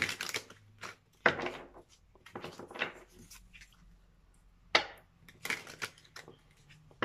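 Tarot cards being shuffled and handled: a handful of short, sharp rustles and snaps with pauses between them, the loudest a little after one second in and near five seconds in.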